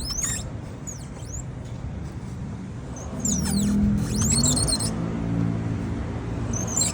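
Abnormal squeaking from the rear wheel of an SYM MMBCU (Mamba) scooter: short high-pitched squeaks that rise and fall in pitch, recurring about once a second. A low hum joins about three seconds in.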